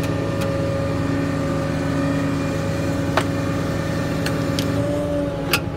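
The truck's 6.4-litre Power Stroke diesel running with the PTO engaged, a steady whine from the PTO-driven crane pump held over the engine while the service crane is worked from its pendant control. The whine dips in pitch near the end. There are a few sharp clicks, one about three seconds in and one just before the end.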